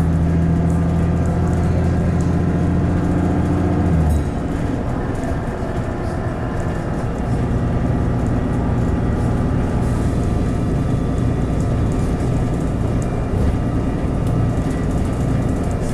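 Interior of a VDL DB300 double-decker bus with Voith automatic gearbox, its engine running in limp mode: a loud, steady engine drone under power that cuts off sharply about four seconds in. After that the bus runs on with a lower, rougher road and running-gear rumble.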